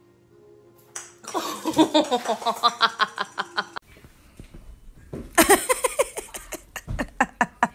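Laughter in quick repeated bursts, twice: a run of a few seconds starting about a second in, then after a short gap a second run past the middle.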